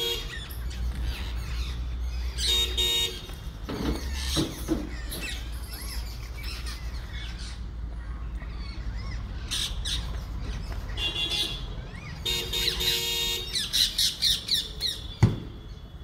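Rose-ringed parakeets calling with harsh, repeated screeches, thickest toward the end, over a low steady rumble of traffic. A single sharp thump comes near the end.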